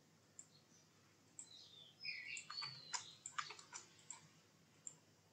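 Faint computer-mouse clicks, scattered at first and then quicker between about one and a half and four seconds in, with a few short high chirps near two seconds.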